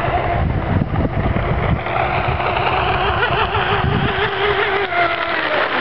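Radio-controlled fast-electric hydroplane's electric motor whining as the boat runs across the water, the pitch wavering and shifting as it goes. A heavy low rumble, likely wind on the microphone, lies under it.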